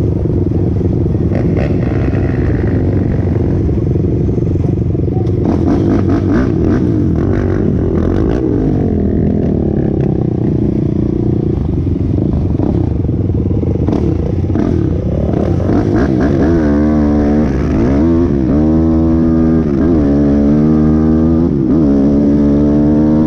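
Single-cylinder sport quad engine heard from onboard, running unevenly at low speed with some clatter. About two-thirds of the way in it accelerates hard, its pitch climbing and dropping repeatedly as it revs up through the gears.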